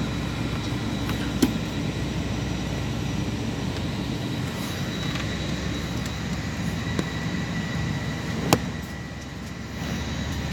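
Steady airliner cabin noise from inside the plane while it moves on the ground: the jet engines' low rumble and the hiss of the cabin air. Two sharp taps stand out, one about a second and a half in and one about eight and a half seconds in.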